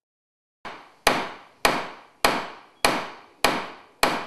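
Hammer blows struck at a steady pace, about one every 0.6 seconds, each dying away quickly; the first, about half a second in, is softer than the rest.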